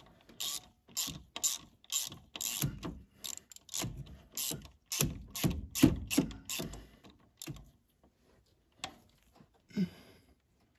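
Hand ratchet clicking in a quick back-and-forth rhythm, about two strokes a second, as it is worked on the engine's valve-train hardware. The clicking thins out to a few isolated clicks about three-quarters of the way through.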